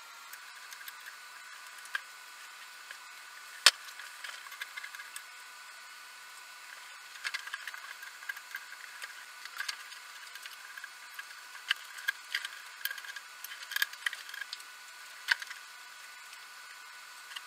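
Scattered clicks and light knocks of tools and small parts being handled during bench work on the electric unicycle's axle, over a steady hiss. One sharp click stands out about three and a half seconds in.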